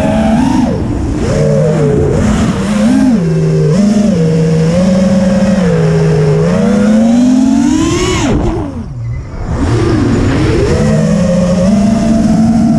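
FPV quadcopter's brushless motors and propellers whining, the pitch rising and falling constantly with the throttle. About two thirds of the way through the whine sweeps up, drops away briefly as the throttle is cut, then picks up again.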